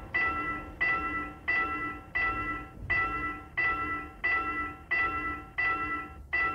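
Railroad crossing warning bell ringing in a steady rhythm, about one and a half strikes a second, each ring fading before the next: the crossing is signalling with barriers down for an approaching train.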